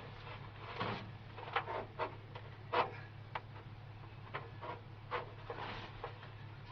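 Rustling, rubbing and light clicks as a sheet of self-adhesive sound-deadening insulation is handled and pressed against the inside of a truck cab roof. A steady low hum runs underneath.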